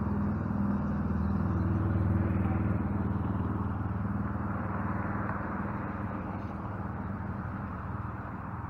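A motor vehicle's engine running with a low steady hum, loudest about two seconds in and then slowly fading.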